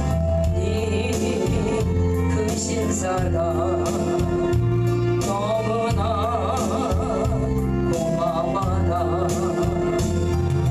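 A gospel-style song: a singing voice with vibrato comes in a few seconds in over steady bass notes and light percussion.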